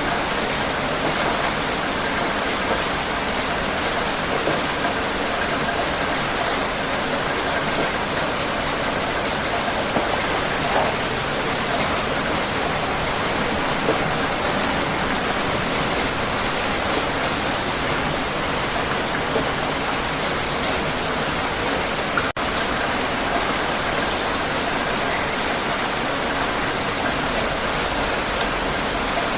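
Heavy rain falling steadily, a dense even hiss with no letup. There is one split-second break in the sound about two-thirds of the way through.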